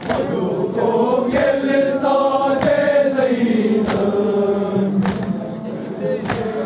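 A crowd of male mourners chanting a Muharram nauha together, with sharp chest-beating (matam) strokes landing in time about every 1.2 seconds.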